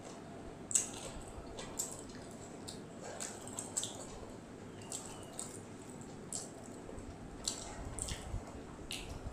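Close-miked wet chewing and lip-smacking from someone eating fried rice and chili chicken: irregular short smacking clicks, roughly two a second, with a few low bumps near the end.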